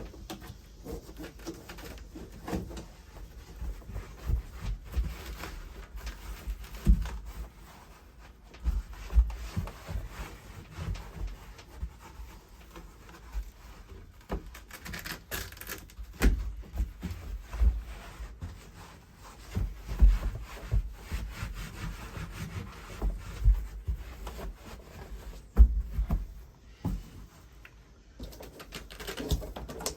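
Hands rubbing and pressing on a pickup truck bed while fitting adhesive strips and liner, with irregular thumps and knocks throughout.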